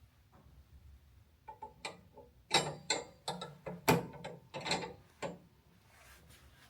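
Bag brackets being pushed and clicked into place on a walk-behind vacuum: a run of clicks and knocks, the loudest about two and a half and four seconds in.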